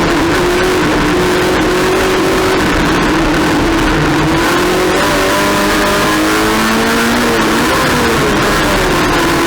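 Race car engine running hard, its pitch rising and falling with throttle changes over a heavy rumble; the pitch drops briefly after about seven and a half seconds, then climbs again.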